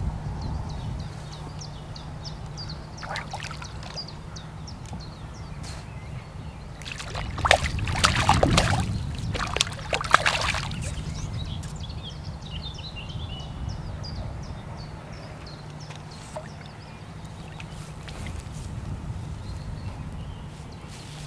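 A hooked golden tench splashing and thrashing at the surface as it is played in on a float rod, with the loudest flurry of splashes lasting a few seconds, starting about seven seconds in.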